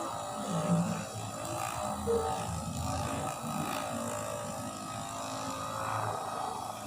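Handheld dolphin-shaped electric massager buzzing steadily as it is run over the body, with a few dull knocks and handling sounds.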